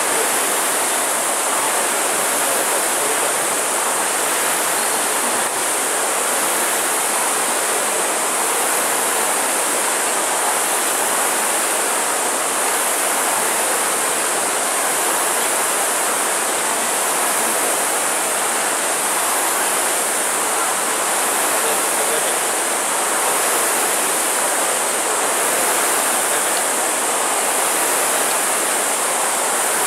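Many air-braked rowing ergometer flywheels spinning at once, giving a steady, even whooshing rush as the rowers pull through their strokes.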